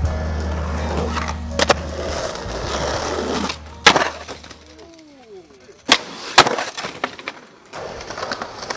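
Skateboard hitting concrete: a sharp clack about four seconds in and two more about six seconds in, then wheels rolling over the pavement with small clicks near the end. Bass-heavy music plays under the first half and stops about five seconds in.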